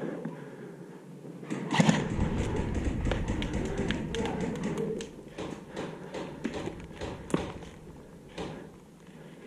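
Movement and handling noise on a body-worn camera as a ghillie-suited airsoft player drops behind brick rubble: a loud bump about two seconds in, then rustling and rumbling with a quick string of sharp taps and clicks running through it.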